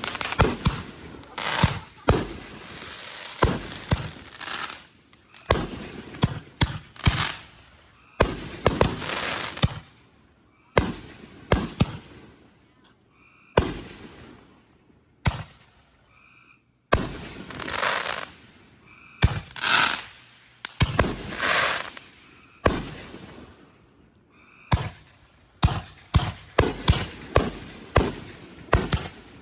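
Consumer fireworks going off in an irregular run of sharp bangs, with several longer stretches of crackling hiss between them.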